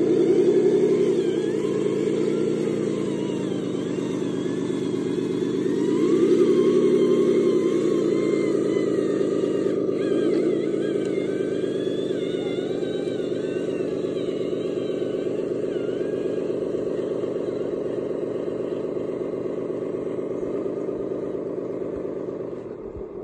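Truck engine sound from a radio-controlled scale dump truck carrying a load of sand up a ramp. The revs rise about a second in and again around six seconds in, then it runs steadily.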